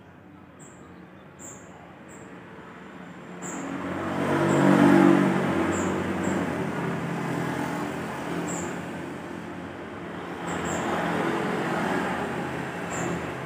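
Motor vehicles passing on the street outside. One engine swells up about four seconds in, is loudest around five seconds, and fades slowly; another passes later. A thin, high chirp repeats about once a second throughout.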